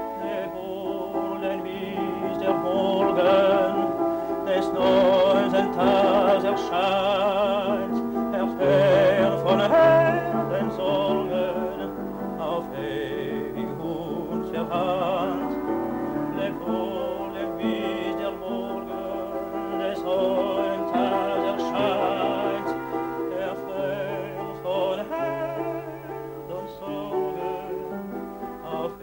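Classical art song: a trained voice singing in German with vibrato over instrumental accompaniment.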